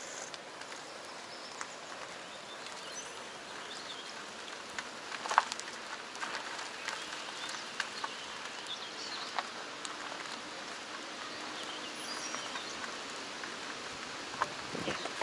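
Car tyre rolling slowly over a dirt and gravel lot, heard from right beside the wheel: a steady hiss with scattered crackles and pops of small stones under the tread, the loudest pop about five seconds in.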